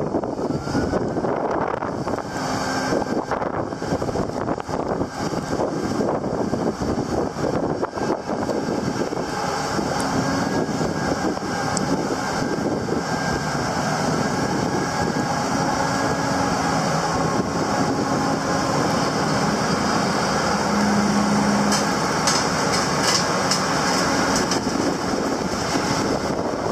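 Diesel engine of a Link-Belt RTC-80100 rough-terrain crane running steadily, with wind noise on the microphone.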